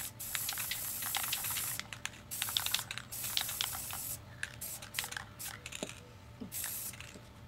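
Aerosol spray paint can spraying in several bursts of hiss, one long and several short, stopping by about five seconds in with one more short spray near the end. Many quick clicks run alongside the hiss.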